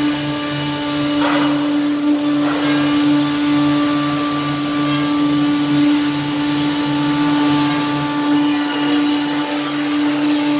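A woodworking shape-cutting saw machine running steadily: a constant hum with a hiss above it, and a lower throb that pulses about twice a second.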